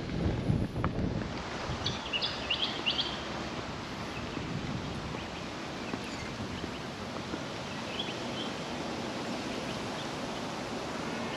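Outdoor ambience: wind gusting on the microphone for the first second or so, then a steady hiss of wind, with a few short bird chirps about two seconds in and again around eight seconds.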